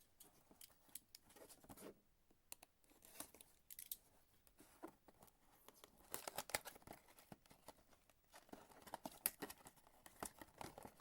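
Faint rustling, crinkling and small clicks of trading cards and their packaging being handled, with clusters of tearing-like rustle about six seconds in and again near the end.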